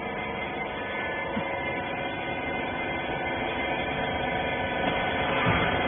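Rag baler's hydraulic power unit running with a steady hum of several tones, growing a little louder near the end.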